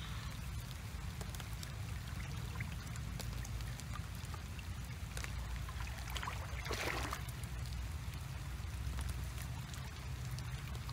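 Water trickling and splashing in a shallow paddy channel over a steady low rumble. Scattered light clicks and a short splashing rustle a bit past halfway come as snails are gathered by hand from the wet grass into a woven bamboo basket.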